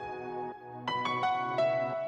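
Background music: slow, soft instrumental with single struck notes ringing out, a few new notes starting about a second in.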